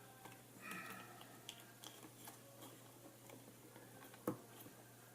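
Faint small clicks and rattles of a clock radio's parts being handled and fitted together by hand, with one sharper click about four seconds in, over a low steady hum.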